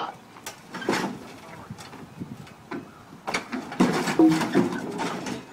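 Scattered knocks, then wooden ramp boards knocking and creaking under a riding lawn mower as it is pushed up them, starting a little past halfway.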